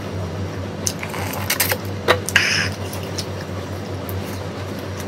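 Eating by hand from a stainless steel plate: fingers scraping and gathering rice on the metal, and chewing mouth sounds, with scattered sharp clicks and the loudest brief scrapes about two seconds in. A steady low hum runs underneath.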